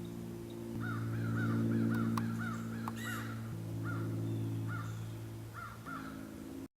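A series of short, sharp animal calls, about two a second for several seconds, over steady low sustained tones that change pitch in a few steps.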